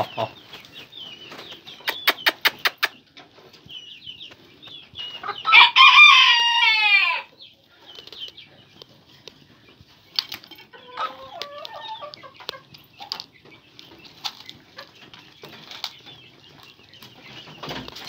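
A rooster crows once, loudly, about five seconds in, the call lasting under two seconds and dropping in pitch at its end. Around it are quieter bird sounds: a quick run of clicks near the start and a short, lower clucking call later on.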